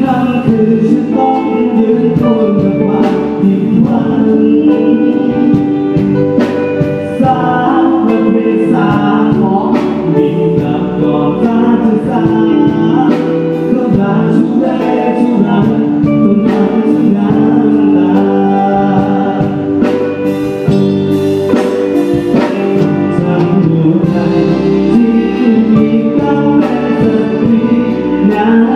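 Live band playing a song with a singer and drums, amplified through a stage PA system during a sound check.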